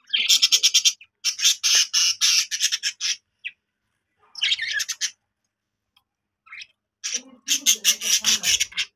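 Budgerigar chicks squawking in harsh, fast-chattering bursts, four main bouts with short gaps, as they are handled out of their nest.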